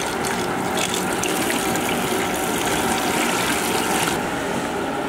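Tap water pouring in a steady stream into a large metal pot of whole tomatoes, splashing on the tomatoes and the pot as they are rinsed. The splashing thins slightly about four seconds in.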